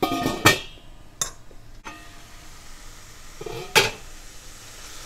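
Stainless-steel lid of a Cutco wok clanking against the wok's rim as it is set on and lifted off: a few sharp metallic knocks with brief ringing. The loudest comes about half a second in, a smaller one follows, and another strong knock comes near the end.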